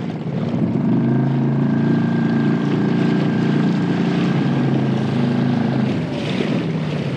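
Small outboard motor on a fishing kayak running steadily under way, easing off about six seconds in, with water washing along the hull.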